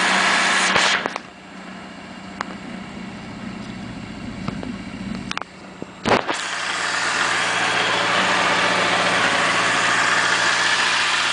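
The 1989 Kawasaki Voyager's four-cylinder engine idles under a loud, steady hiss of CB radio static. The hiss cuts out about a second in, leaving the idle and a few small clicks, then comes back with a sharp click about six seconds in.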